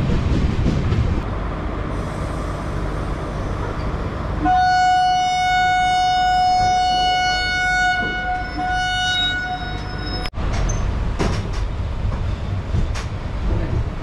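Train horn sounding one long steady blast of about six seconds, starting about four seconds in and cutting off sharply. Under it is the rumble of the moving train and wind on the microphone.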